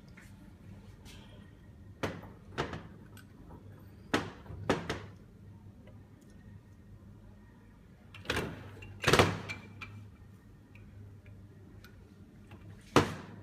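Metal parts of a Hydramatic automatic gearbox being handled and set in place during a rebuild. Sharp knocks and clunks come in pairs about 2 and 4 seconds in, then louder ones about 8 to 9 seconds in and one more near the end, over a low steady hum.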